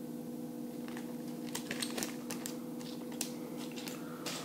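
Small plastic zip bags of spare keycaps crinkling as they are handled, with light clicks of the plastic keycaps knocking together: a string of short, sharp crackles from about a second in, over a steady low hum.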